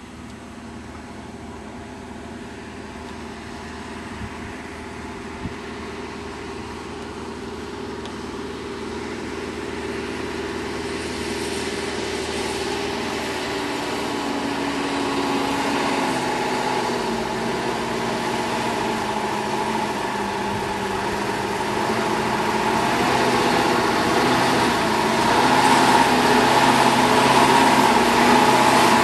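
IFA W50 truck's four-cylinder diesel engine running as the truck approaches, growing steadily louder. The engine note drops for a few seconds around the middle, then rises again.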